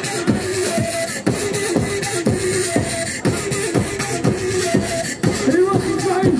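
Kurdish wedding dance music played by a live band: a steady drum beat of about two beats a second, each hit sliding down in pitch, under a repeating melody.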